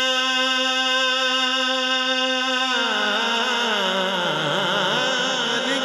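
Male naat reciter singing through a PA system, holding one long steady note, then about three seconds in sliding down in pitch into a wavering, ornamented line.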